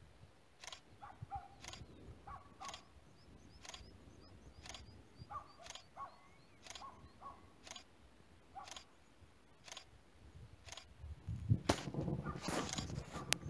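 DSLR camera shutter clicking about once a second, firing frame after frame for a time-lapse. Small birds chirp faintly between the clicks, and a louder low rumbling noise comes in near the end.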